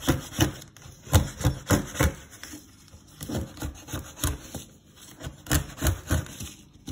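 Plastic card scraping dried tomato seeds off a paper plate, pressed hard in short repeated strokes a few a second, with brief pauses between runs; the seeds are well stuck on.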